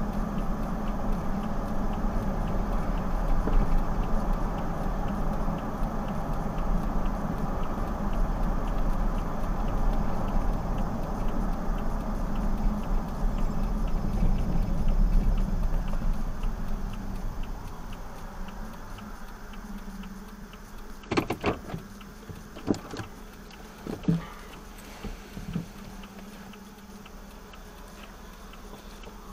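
Vehicle driving, heard from inside the cab: steady engine and road noise that dies away as it slows to a stop about eighteen seconds in. The engine then idles quietly under a few sharp clicks and knocks from inside the cab.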